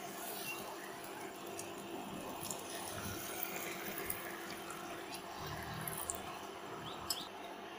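Beaten egg sizzling in a hot nonstick pan while more egg is poured in for a rolled omelette, with a few light clicks of spatulas against the pan.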